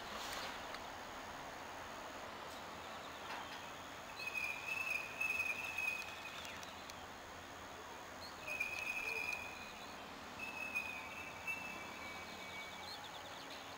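Quiet outdoor background noise after the train has stopped, with a few thin, high, near-steady chirping tones lasting a second or two each, about four, eight and ten seconds in.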